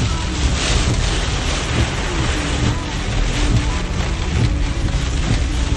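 Storm noise: heavy rain and strong wind, gusts buffeting the microphone in an uneven low rumble.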